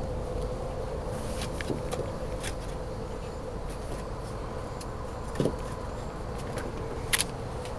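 Steady background hum with a constant tone, over which come scattered light ticks and taps of a puppy moving about a wooden deck among plastic chairs. A dull thump comes about five and a half seconds in, and a sharp click near the end.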